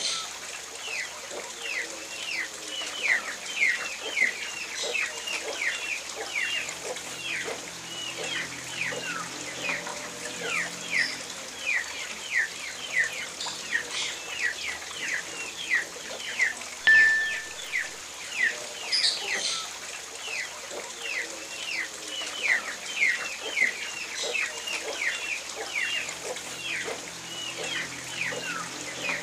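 Free-range village chickens in a yard: a steady stream of short, high, falling chirps several times a second, over faint low clucking.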